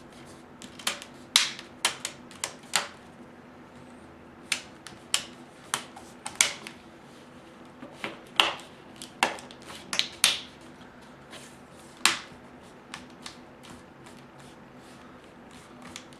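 Plastic screen bezel of an HP 14-cf0006dx laptop being pressed into place: a series of sharp, irregular clicks as its clips snap onto the lid, a few of them loud, thinning out near the end.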